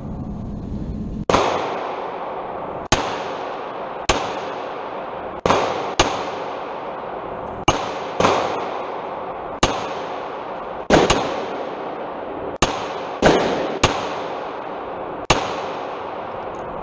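Gunfire: about fourteen shots at uneven spacing, some in quick pairs, each followed by an echoing tail.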